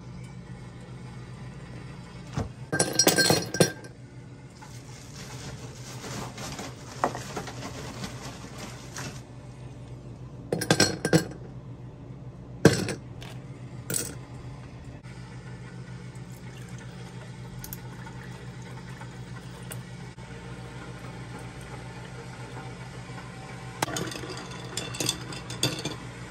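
Dishes and cups clinking and clattering while making coffee and oatmeal, with liquid poured for a few seconds about five seconds in, over a steady low hum.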